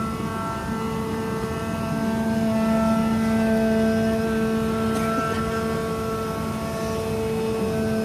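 CNC vibrating-knife leather cutting machine running while it cuts a leather hide: a steady hum with higher whining tones that come and go.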